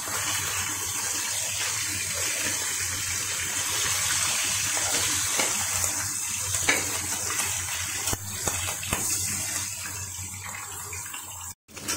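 Hilsa fish head frying in hot oil in a wok, a steady sizzle, with a metal spatula scraping and tapping the pan a few times as the head is broken up. The sound briefly cuts out near the end.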